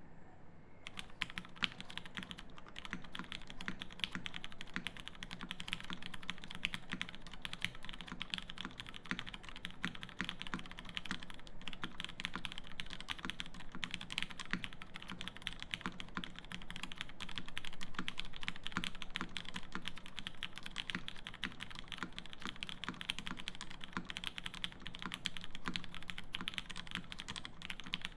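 Fast, continuous typing on a TGR Jane V2 CE mechanical keyboard with lubed Cherry Hyperglide Black linear switches on a carbon plate and GMK keycaps: a dense stream of key clacks that starts about a second in.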